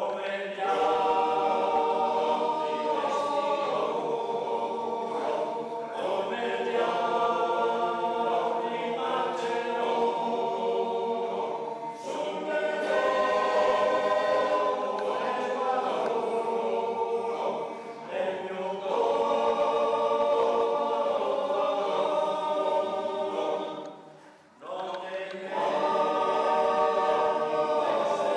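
Choir singing sustained chords in long phrases, with a short pause about three-quarters of the way through before the next phrase.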